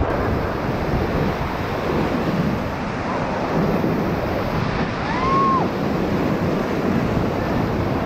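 Whitewater rapids rushing loudly and steadily around an inflatable raft, with a brief high-pitched sound about five seconds in.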